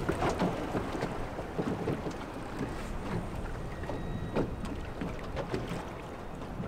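Water lapping and slapping irregularly against the hull of a small fishing boat, with wind buffeting the microphone.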